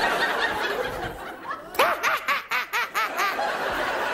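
Studio audience laughing, with one voice standing out in a quick run of about eight 'ha' bursts about two seconds in.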